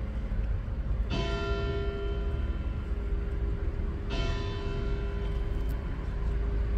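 Church bell tolling slowly, one strike about every three seconds, each ringing out and fading before the next, over a steady low rumble.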